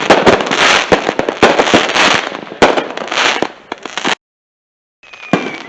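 Consumer fireworks and firecrackers going off: rapid sharp bangs and pops over constant crackling. The sound cuts off abruptly about four seconds in, silent for nearly a second, then bangs and crackling resume with a faint whistle.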